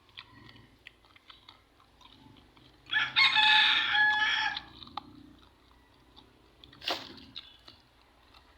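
A rooster crows once, a single long call of about a second and a half, about three seconds in. Faint scattered clicks run throughout, and a short sharp noise comes near the end.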